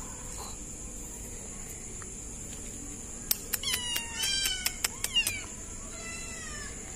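Kitten mewing while being held: a run of short, high-pitched mews in the middle with a few sharp clicks among them, then a few fainter mews near the end.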